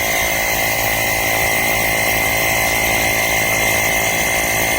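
Wistrue portable battery air compressor (tyre inflator) running steadily, its small motor-driven pump giving a loud, even buzz with a constant high whine.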